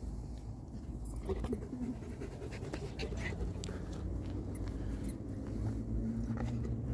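Dogs panting and sniffing at close range as a Caucasian Ovcharka noses a Pomeranian, with many light scuffs and clicks from about a second in.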